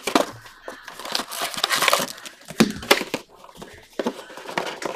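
A foil trading card pack crinkling and tearing as it is opened and handled, with many small sharp crackles and clicks.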